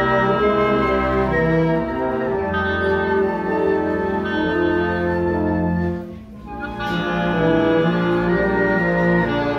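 Wind band of brass and woodwinds playing a march. The music drops out briefly about six seconds in, and then the full band comes back in.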